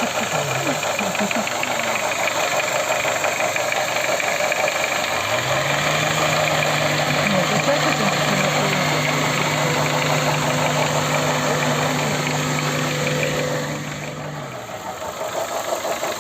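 Honda Fit's L13A four-cylinder engine running with a noise and rapid knocking, the fault the owner is chasing, with a pulley seen wobbling. About five seconds in, a steady low hum comes in and holds for about eight seconds before dropping away.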